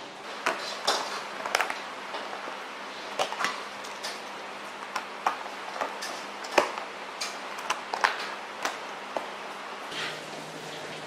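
Clear plastic food tubs handled on a tabletop: lids pressed and snapped on, tubs set down and shifted, giving irregular sharp clicks and knocks over a faint steady hum.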